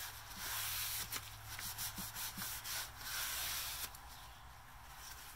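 Cloth rag rubbing over the wooden slats of a crate, wiping off wet stain in a run of scratchy strokes that stops about four seconds in.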